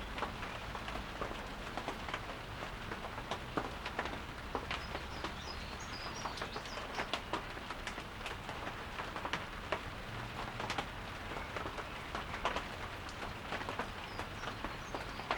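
Light rain falling, an even hiss with irregular drops ticking sharply on surfaces. A bird chirps faintly a few times around the middle.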